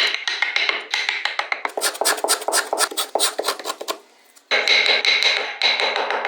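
Wood being worked with carving tools: rapid taps and scrapes against wood. In the first second, and again after a brief pause about four seconds in, a steady high whine runs under them.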